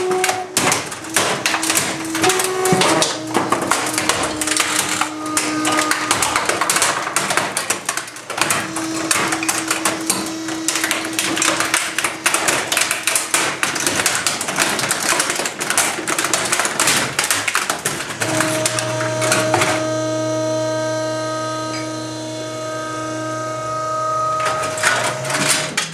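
Trash compactor crushing a metal toolbox: a long run of crackling, crunching sheet steel with short squeals as it folds. About two-thirds of the way through, this gives way to the compactor's motor running with a steady hum as the ram moves, which stops shortly before the end.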